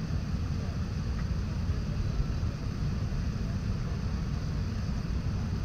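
Steady low rumble inside an airliner cabin, with the jet engines running at low power on the ground before takeoff.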